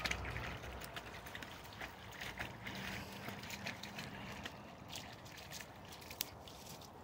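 German shepherd wading and splashing through a shallow muddy puddle, with irregular splashes from its paws that thin out toward the end as it steps onto the bank. A single sharp click about six seconds in.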